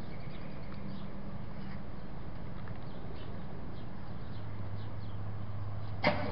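Chevrolet Silverado engine running at a low idle with faint, irregular ticking over it, the ticking noise being listened for. A single sharp click comes near the end.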